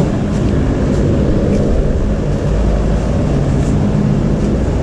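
Steady low machine drone with a constant hum, and a few faint light clicks.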